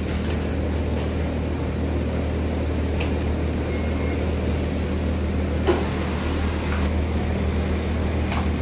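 Steady low machine hum of a garment factory floor, with a few light clicks and taps as the clear plastic sewing template and fabric pieces are handled, the sharpest a little over halfway through.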